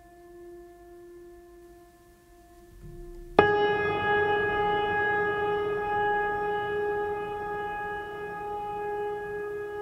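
Background music: a soft held tone, then about three and a half seconds in a louder sustained chord comes in suddenly and slowly fades.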